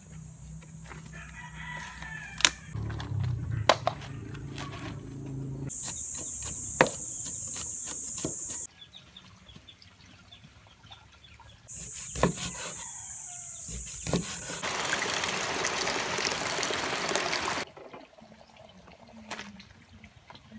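Roosters crowing over outdoor cooking sounds, with sharp knocks and clicks throughout. There are two stretches of a steady high-pitched hiss, each lasting a few seconds. About three quarters of the way through comes a few seconds of even rushing noise.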